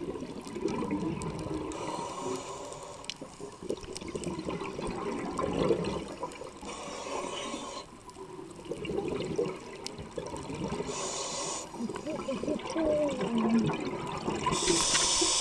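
Scuba diver breathing through a regulator underwater: a hiss with each inhale, about every four to five seconds, and bubbling on the exhales in between. Muffled vocal noises are made into the mouthpiece, with wavering pitch.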